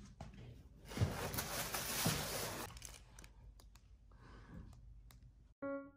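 Plastic packaging wrap rustling and crinkling while carpet tiles are handled, strongest for about two seconds, then a few soft clicks and handling noises. Piano background music comes in near the end.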